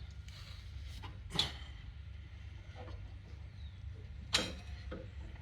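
Knocks and clicks of metal mower parts as the riding mower's deck belt is worked around its pulleys by hand: two sharper knocks, about a second and a half in and about four seconds in, with lighter ticks between.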